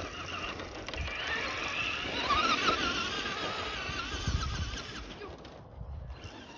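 RC car's motor whining at high pitch as it speeds across the lawn, the pitch rising and falling with the throttle. The sound fades as the car drives away near the end.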